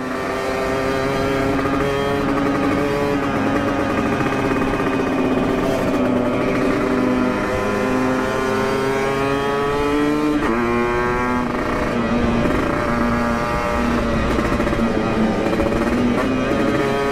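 Motorcycle with an aftermarket racing exhaust riding under power, its engine note climbing slowly as it speeds up, with a quick rise and change in pitch about ten seconds in.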